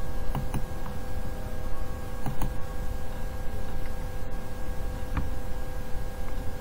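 A few soft computer mouse clicks over a steady electrical hum and low rumble of room and microphone noise.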